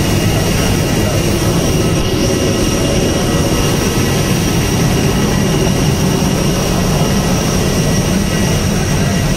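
Airliner engines running steadily after landing: a constant low roar with a thin high-pitched whine over it.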